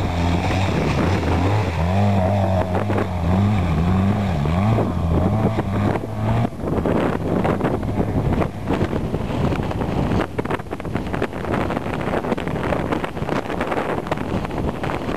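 Quad bike engine running close by, its pitch rising and falling several times as the throttle is worked. About six seconds in it gives way to wind buffeting the microphone, rough and crackling.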